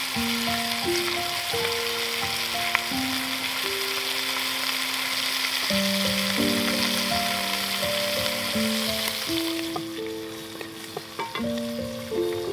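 Pork belly frying in hot fat in a cast-iron pot, a dense sizzle while it is turned with wooden chopsticks. The sizzle drops away about ten seconds in, leaving a few sharp taps. Background music of long held notes plays throughout.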